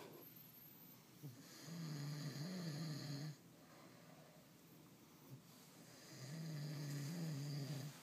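A sleeping pug snoring: two long, pitched snores of nearly two seconds each, about four and a half seconds apart, with quieter breathing between them.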